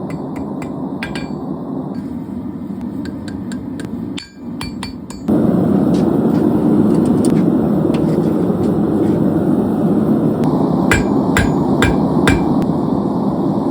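Hand hammer striking 3/8-inch mild steel round stock as it is forged, irregular blows with a short metallic ring, heard over a steady rushing noise. The rushing noise jumps louder about five seconds in, and a quick run of blows comes near the end.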